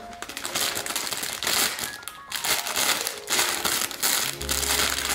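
Clear plastic packaging bag crinkling as it is handled and opened, with soft background music underneath.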